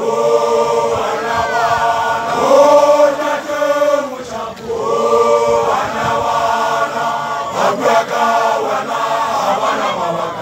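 Group of Basotho makolwane (newly graduated initiates) chanting in unison, one short phrase repeated over and over in rising and falling swells every two to three seconds.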